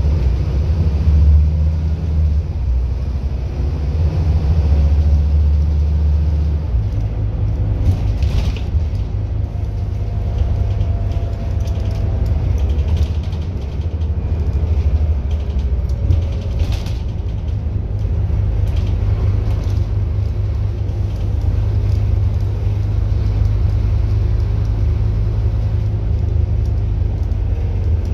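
Scania N230UD double-decker bus under way, heard from inside the top deck: a steady low drone from its five-cylinder diesel engine and drivetrain, mixed with road noise. The deepest part of the engine note drops away about seven seconds in, and a few brief rattles come from the body.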